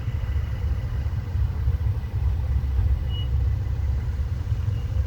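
Steady low rumble of road traffic, heavy in the bass, with no distinct events.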